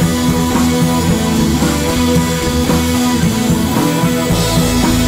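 Background music: a rock track led by guitar.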